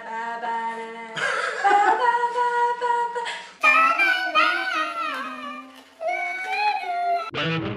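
A man and a woman singing and humming a tune in short phrases, breaking into laughter partway through.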